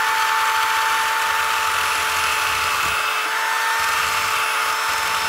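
Electric drill spinning a wheel attachment at a steady speed, a constant whine with a grinding hiss, as the wheel is pressed against a snack cake frozen hard in liquid nitrogen.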